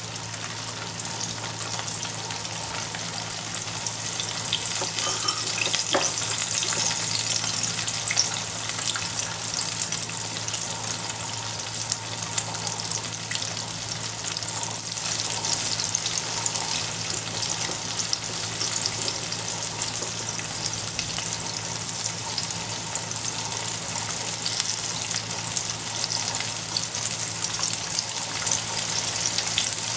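Cornstarch- and egg-coated tofu frying in oil in a wok: a steady sizzle with dense fine crackling.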